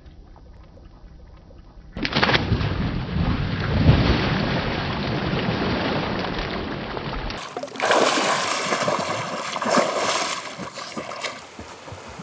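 Loud splashing of lake water as men dive and jump in, starting about two seconds in. Partway through it changes to a brighter spray of splashing that fades near the end.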